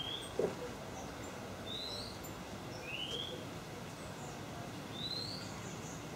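A bird repeating a short rising chirp about once a second, alternating between a lower and a higher pitch, over steady outdoor background noise. A brief, louder low sound is heard about half a second in.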